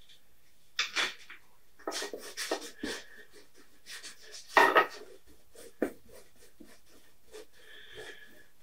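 Long-handled brush scrubbing and dabbing oil paint, first on the palette and then on the canvas: a run of short, uneven scratchy strokes.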